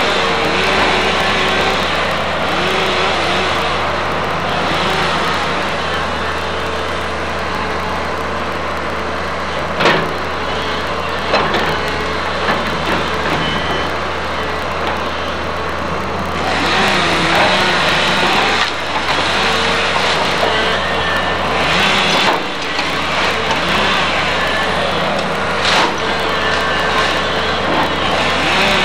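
Komatsu hydraulic excavator's diesel engine running steadily under load as it breaks into a wood-frame house, with a wavering hydraulic whine. A few sharp cracks of splintering wood, and a longer stretch of crashing, clattering debris past the middle.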